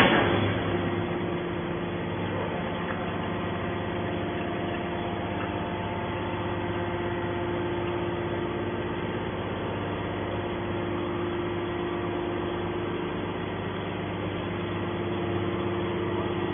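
Hydraulic baler's power unit running with a steady hum, opening with a single sharp bang.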